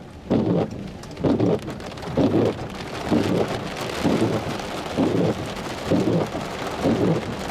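Heavy rain hitting the car, with windshield wipers swishing in a steady rhythm about once a second, heard from inside the car.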